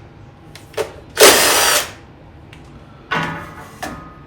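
Power drill spinning a 5/16 socket in short bursts to back out the bolts holding the carburetor on a two-cylinder Kohler engine: one loud burst about a second in, then a shorter, weaker whining run near the end.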